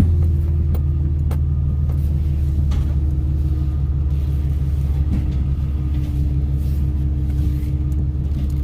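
Truck engine running steadily, heard from inside the cab as a low hum, with its pitch settling slightly lower near the start.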